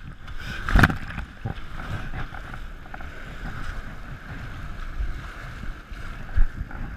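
Whitewater rapids rushing and splashing around an inflatable kayak, with a loud splash about a second in and a low thump near the end.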